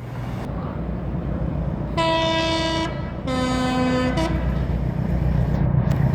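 Train sounding a two-tone horn, a higher note held about a second, then a lower note held about a second, with a short blip of the high note after, over the continuous rumble of the moving train.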